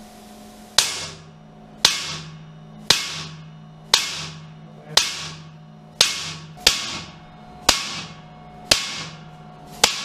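Electric-pulse disintegration unit firing 250 kV spark discharges through rock samples in water to crush them: ten sharp cracks, about one a second, each with a short ringing tail, over a steady low hum.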